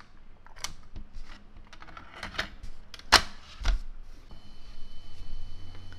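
Plastic clicks and knocks from handling the opened Sony WM-EX19 Walkman and pressing its controls. About four seconds in, a steady high tone starts, with a low hum joining under it: the Walkman playing a test tape for a wow and flutter check on its new belt.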